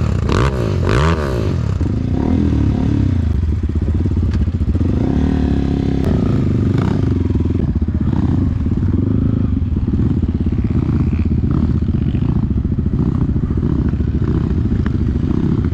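Dirt bike engine revving up and down a few times at the start, then running steadily as the bike rides off along a dirt track.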